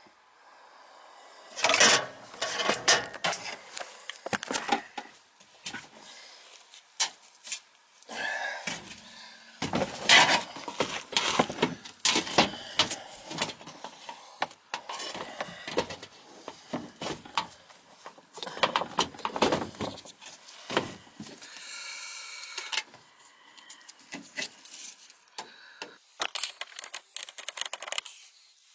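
Irregular knocks, clicks and rattles of things being handled, in clusters with short quiet gaps between them.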